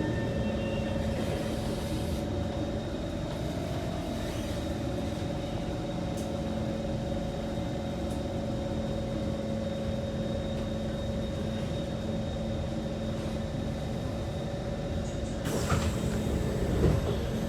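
Kawasaki C151 metro train standing at a station: a steady hum of its onboard equipment and air conditioning. About fifteen seconds in, a burst of hiss and a few knocks rise over it.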